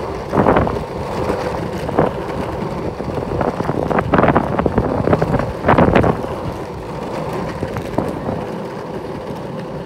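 Wowgo electric skateboard rolling along rough tarmac, its wheels rumbling steadily, with wind buffeting the microphone. Several sharp knocks stand out, the loudest about four and six seconds in.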